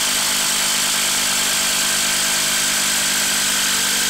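DeWalt DCF890 cordless impact wrench, converted to a 1/4-inch hex anvil, running steadily under load on a long fastener in a wooden stump.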